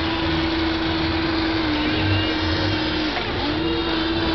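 Electric motors of a Hobby Engine radio-controlled toy excavator whining steadily as the boom lifts the bucket, the pitch dipping briefly twice.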